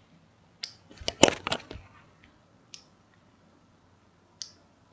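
Handheld two-way radios being handled and set on a tabletop: scattered sharp clicks and knocks, with the loudest, a quick cluster of knocks, about a second in.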